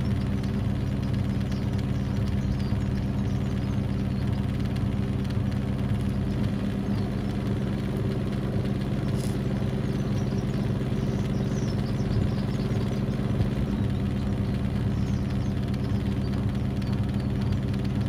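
AEG/Electrolux washing machine spinning with a carpet inside: a steady motor hum with a rumble that holds an even pitch.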